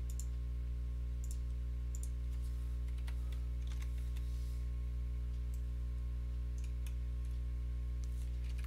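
Scattered computer mouse clicks and a few keyboard keystrokes, about a dozen short sharp clicks spread through, over a steady low electrical hum.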